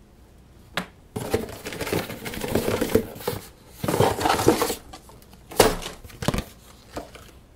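Paper and cardboard packaging being handled, rustling and crinkling in a few bursts, with a few sharp taps in between.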